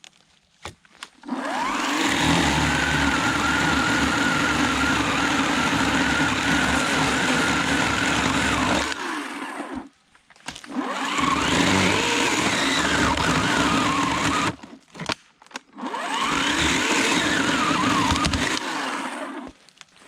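Electric chainsaw cutting into a fallen tree in three runs, one long and two shorter, stopping briefly between them, its pitch sliding down and up as the chain loads in the wood.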